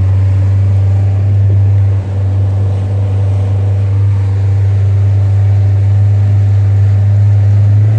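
Boat engine running steadily: a loud, low, even drone heard on board.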